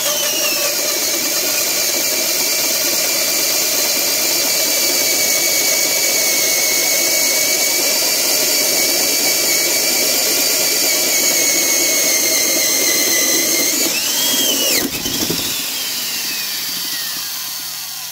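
Black & Decker 1321 half-inch heavy-duty spade-handle drill (6-amp, triple gear reduction) boring a large hole in wood, its motor whining steadily under load. About fifteen seconds in it briefly speeds up, then is let off and winds down, the whine falling in pitch as it slows.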